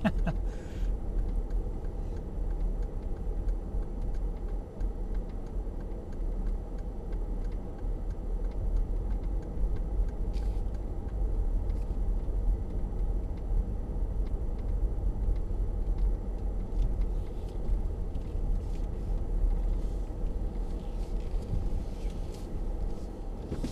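Steady low rumble of engine and tyre noise heard from inside the cabin of a Mercedes-Benz GL-Class driving over a gravel car-park surface, with a few faint ticks and knocks.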